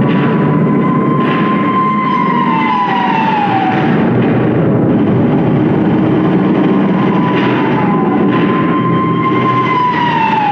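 Air-raid siren wailing, a held tone that sags and falls in pitch about every five seconds, over a steady low rumble.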